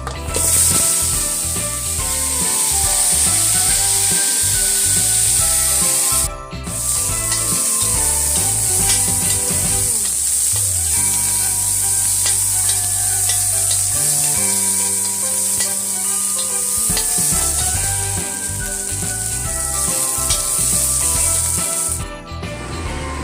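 Food frying in hot oil: a steady sizzle with stirring, over background music. The sizzle breaks off briefly about six seconds in and stops near the end.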